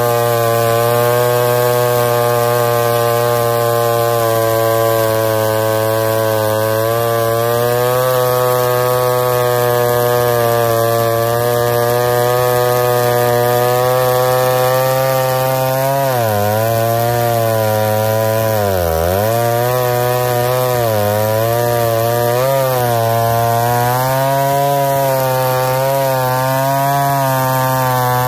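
Vintage McCulloch two-stroke chainsaw running at high speed, cutting wood. The engine note holds steady for the first half, then dips in pitch and recovers several times.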